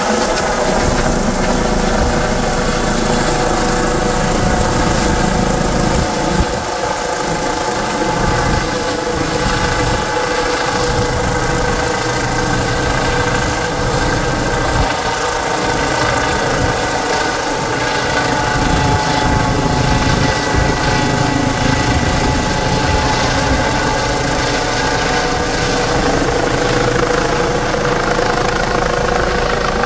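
Air ambulance helicopter climbing overhead after takeoff: a steady turbine whine with several held tones over the rotor noise, loud and unbroken.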